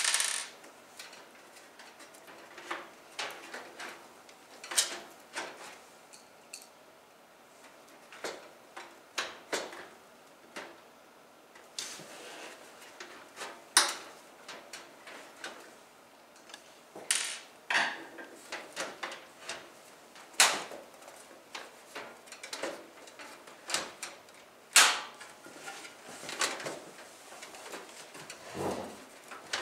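Irregular clicks, knocks and scrapes of a PC power supply unit being handled and fitted into a computer case, with a few sharper knocks among many lighter ones.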